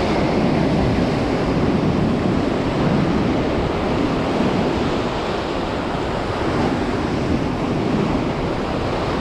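Ocean surf washing steadily on a beach, with wind buffeting the microphone.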